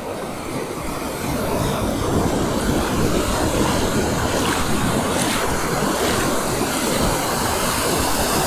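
Ocean surf washing and breaking in the shallows, a steady rushing wash, with wind buffeting the microphone.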